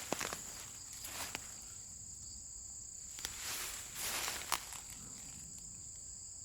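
Footsteps through grass and undergrowth, a handful of uneven steps and rustles, over a steady high-pitched chirring of insects.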